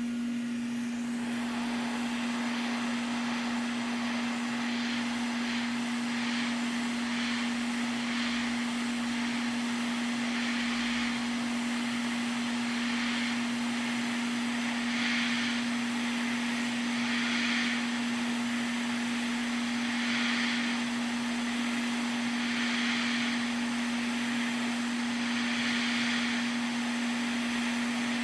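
Steady whir of a small electric blower on the repair bench, with a constant hum under a hiss of moving air that swells every two to three seconds.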